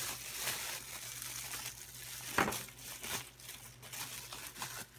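Bubble wrap crinkling and crackling as a small part is unwrapped by hand, with one sharper crackle about two and a half seconds in.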